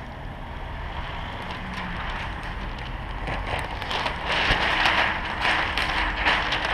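Plastic window tint film and its clear liner rustling and crackling as they are handled, louder and denser from about four seconds in, over a low steady rumble.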